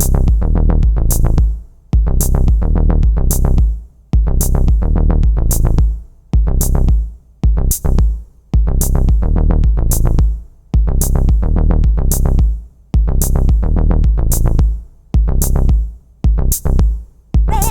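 Instrumental electronic music: a drum machine beat over a deep synth bass, looping the same phrase about every two seconds, with the sound dropping away briefly at the end of each phrase.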